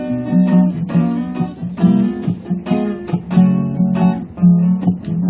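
Acoustic guitar strummed in a steady rhythm, chords struck about two or three times a second, as an instrumental passage between sung verses.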